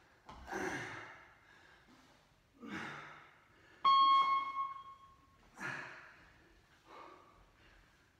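A man breathing out hard with each sit-up, a heavy exhalation every couple of seconds. About four seconds in, a single ringing tone sounds once and fades over a second or so.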